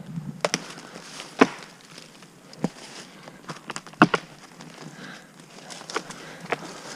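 Dry sticks and twigs snapping underfoot on a wooded slope, amid the shuffle of leaf litter: a few irregular sharp cracks, the loudest about a second and a half and about four seconds in.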